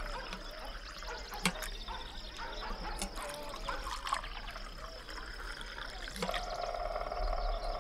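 Water trickling and bubbling like a small stream, with two sharp clicks in the first half. About six seconds in, a steady buzzing sound joins it.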